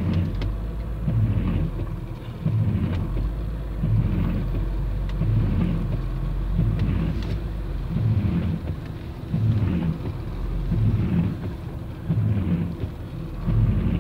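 Inside a vehicle cabin: the engine runs low and steady as the vehicle backs slowly through floodwater, with a low whirring pulse repeating about every second and a half from the windshield wipers sweeping back and forth.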